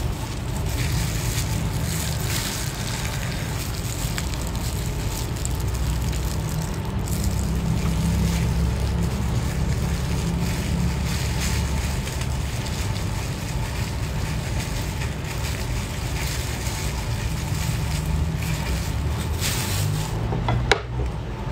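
A steady low rumble runs throughout, with faint crinkling and squelching from plastic-gloved hands squeezing spicy crab onto rice. There is one sharp click near the end.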